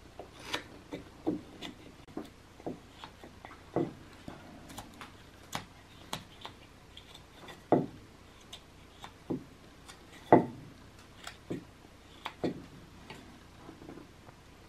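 Carving knife paring air-dried basswood: short, crisp cuts as chips come off, irregular, about one a second, with one louder cut about ten seconds in.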